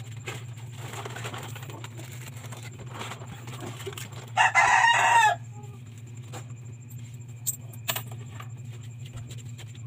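A rooster crowing once, a loud call about a second long near the middle, over a steady low hum. A couple of sharp clicks follow a few seconds later.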